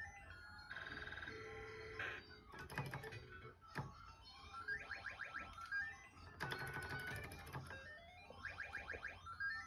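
Electronic sound effects of a mahjong-themed arcade game machine: quick rising runs of chiming notes that repeat every few seconds, with a held electronic chord about a second in and scattered clicks.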